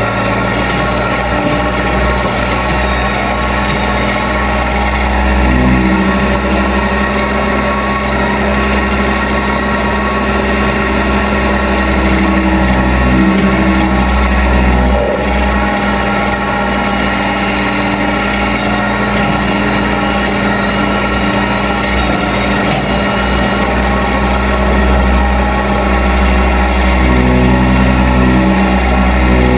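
Engine of a Case 580B backhoe running steadily, its note shifting briefly a few times as it is worked.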